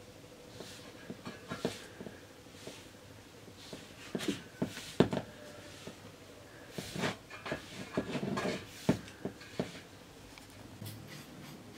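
Hands working flour in a large steel bowl: soft irregular rubbing with scattered taps and scrapes against the metal, the sharpest about five seconds in and a cluster a little later.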